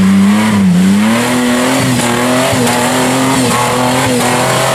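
Lifted off-road Jeep's engine revving hard under load as it climbs a steep, muddy slope. The revs dip briefly about a second in, then stay high and wavering.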